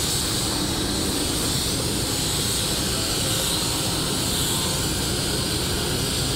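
Compressed-air paint spray gun hissing steadily as it sprays paint onto a refrigerator's sheet-metal side, over a low steady rumble.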